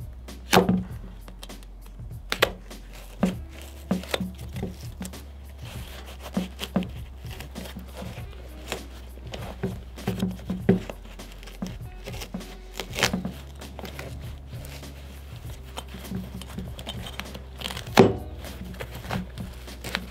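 Irregular knocks and taps as an Osiris D3 skate shoe is handled and worked with an awl on a wooden workbench, over steady background music. The loudest knocks come about half a second in and again near the end.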